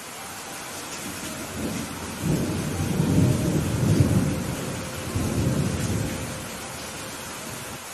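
Steady rain falling, with a long rumble of thunder that swells about a second and a half in, is loudest around the middle, and rolls away before the end.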